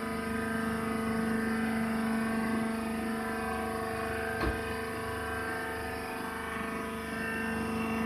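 Wood-shavings baler's hydraulic power unit running with a steady hum and whine, while the bale is wired off in the chamber. A single light knock about halfway through.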